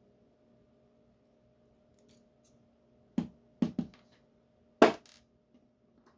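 Small metal lock parts clicking and clacking against a hard surface as the lock is taken apart: a few faint ticks, then four or five sharp clicks, the loudest about five seconds in. A faint steady hum sits underneath.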